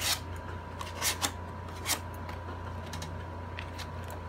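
Scissor blade scraped along the edge of a cardboard petal to curl it: a handful of short, sharp scraping strokes, roughly one a second, over a steady low electrical hum.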